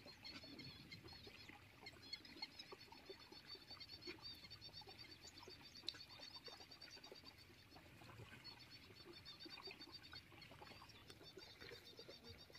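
Faint outdoor ambience of rapid, high-pitched chirping from small animals, steady apart from a short pause a little past halfway, with light scattered rustling.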